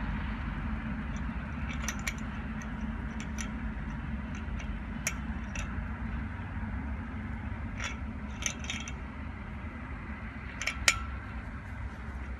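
Light metallic clicks and scrapes of a metal fence clip, bolt and nut being handled and fitted onto a steel post and a PVC-coated wire mesh panel, about ten scattered clicks with one sharper click near the end. A steady low rumble underneath.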